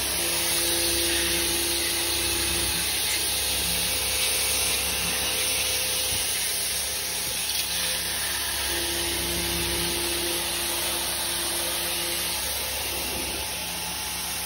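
Pressure washer spraying a high-pressure jet of water against a car's front bumper, a steady hiss of spray over the machine's running hum, with a humming tone that comes and goes.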